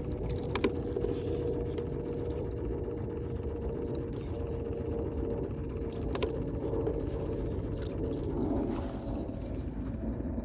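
A small motor running with a steady, even whine that fades out about eight and a half seconds in, over a low rumble, with a few faint clicks.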